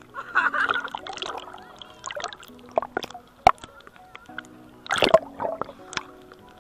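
Background music with sustained notes. Over it, sea water splashes and slaps irregularly against a camera at the water's surface, with the sharpest splashes about three and a half and five seconds in.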